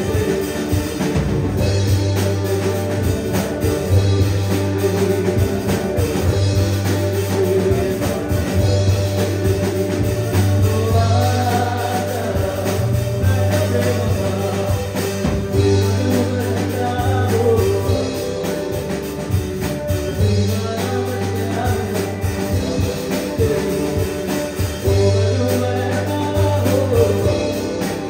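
Live band playing: a male vocalist singing over electric guitar, keyboard and drums.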